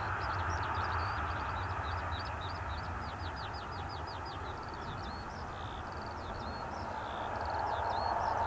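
Boeing 737-800's CFM56 jet engines running at taxi power, a steady rushing hum that grows a little louder near the end. Small birds chirp and trill repeatedly over it.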